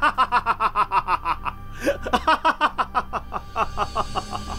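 A man laughing in a long fit of rapid, rhythmic "ha-ha-ha" bursts, about six or seven a second. There is a short break about two seconds in, then the laughing runs on and slows near the end.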